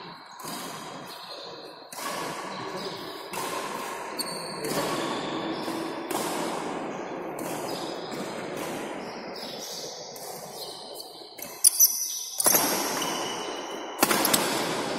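Badminton rally: a string of sharp racket hits on a shuttlecock, each echoing in a large hall, with a few short high shoe squeaks on the court floor and a hard smash near the end.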